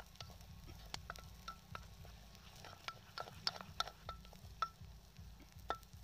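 Wooden spatula stirring inside an aluminium pressure cooker, knocking against the metal pot in irregular taps that each give a short ring. The taps come thickest through the middle of the stirring.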